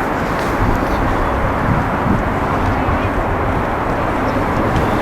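Steady outdoor background noise with a low rumble, even throughout, with no distinct events.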